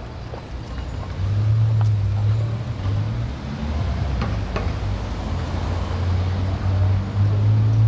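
Street traffic: a motor vehicle's engine running close by as a steady low hum, which grows louder about a second in and again near the end, over general road noise.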